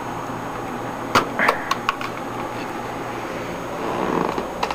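A few sharp clicks and knocks of computer parts being handled, about a second in and again near the end, over a steady low hum.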